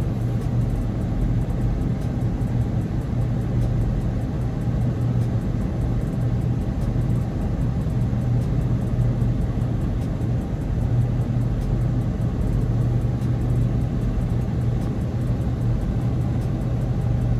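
A car engine idling steadily, a constant low hum with no change in speed.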